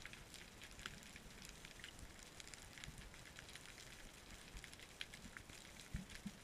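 Faint underwater crackling: a steady scatter of small clicks, with a soft low thump near the end.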